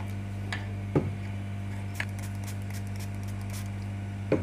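A steady low electrical hum under a few light taps and clicks of a tool on an ECM circuit board, the loudest about a second in, with faint scratching in between.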